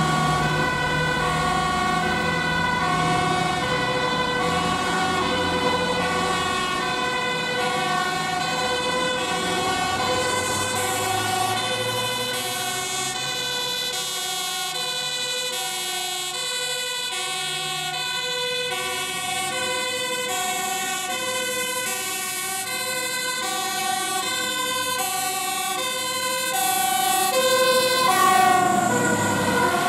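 Dutch fire engine's two-tone siren, alternating steadily between a high and a low note as the truck approaches, loudest as it passes close near the end, where the notes bend in pitch.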